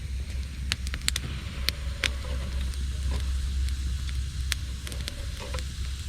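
Campfire of gathered branches and driftwood crackling, with sharp pops at irregular intervals over a steady low rumble.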